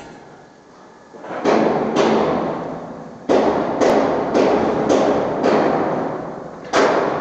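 Hammer blows on steel: about eight sharp strikes, each followed by a ringing, echoing decay. They start after a quieter first second and come about every half second, with one longer pause.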